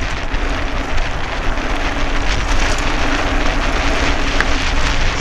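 Steady rushing noise of a 29-inch mountain bike going fast down a dirt road: knobby tyres rolling over packed earth and air rushing past the handlebar-mounted camera.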